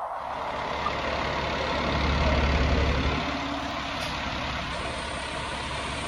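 Fire engine pumper's diesel engine running close by as the truck pulls away, the low rumble getting louder about two seconds in, then easing off a second later.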